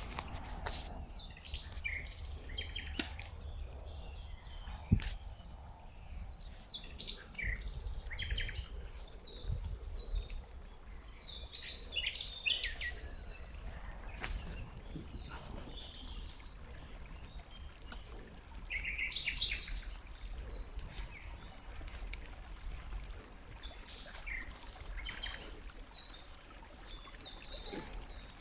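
Several songbirds chirping and trilling, calls overlapping on and off throughout, over a steady low rumble. A single sharp click about five seconds in.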